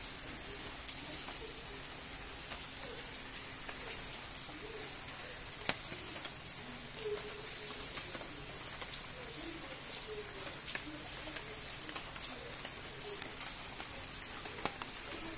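Steady rain falling on garden foliage, a continuous hiss with irregular sharp taps of single drops landing close by.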